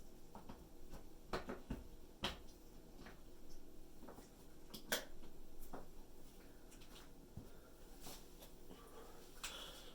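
Scattered light clicks and knocks from handling an open dishwasher's parts and dishes, about a dozen spaced irregularly, the sharpest about two and five seconds in.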